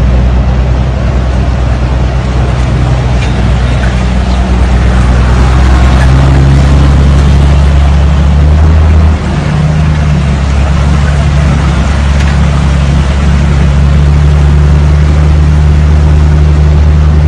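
A vehicle engine runs steadily under a constant rushing hiss of floodwater streaming across a road. The engine's note shifts after a brief dip about nine seconds in.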